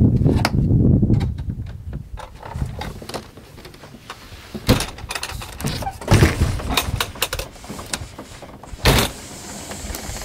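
Aliner A-frame camper's hard-sided wall and roof panels being folded down by hand: a low rumble of handling at first, then a series of clicks and clunks, with three sharper knocks, the loudest about six seconds in.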